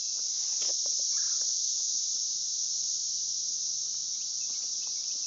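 Steady high-pitched chorus of insects buzzing without a break.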